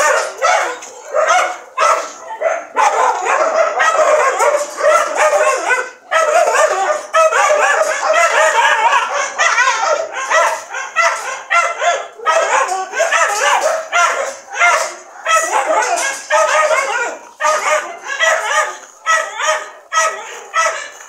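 Several dogs barking and yipping over one another, almost without pause.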